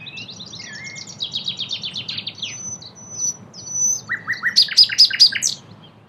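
Common nightingale (Luscinia megarhynchos megarhynchos) singing: a rapid run of down-slurred notes, a few thin high whistles, then a loud fast series of sharp notes near the end.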